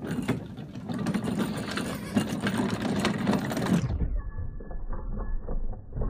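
Hard plastic wheels of a Little Tikes Cozy Coupe ride-on toy car rattling and clattering as it is pushed across wooden deck boards. About four seconds in, the sound turns duller.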